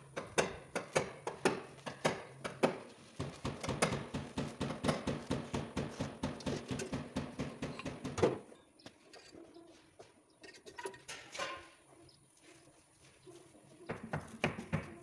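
Oxy-fuel gas welding torch fusing steel body sheet metal with a filler rod: rapid crackling and popping of the flame and weld puddle. It stops abruptly a little past halfway and starts again near the end.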